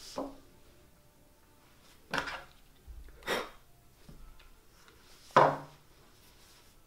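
Small objects handled on a table: a few short knocks and clicks, the loudest one about five seconds in, as a red plastic cylinder with a cap is picked up and handled.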